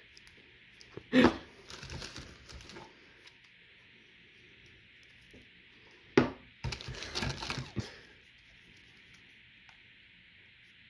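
Metal soup cans being handled: a can knocks down onto a wooden table twice, about a second in and about six seconds in. Each knock is followed by a second or two of scratchy rustling from the plastic shrink-wrap and the marker writing on the cans.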